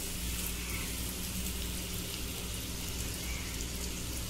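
Somas (stuffed maida-dough pastries) deep-frying in hot oil in a kadai: a steady sizzle with fine crackling.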